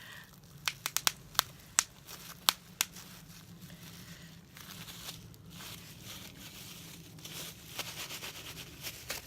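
Crinkly plastic packaging being handled: a quick run of about eight sharp pops in the first three seconds, then steady crinkling and tearing of plastic.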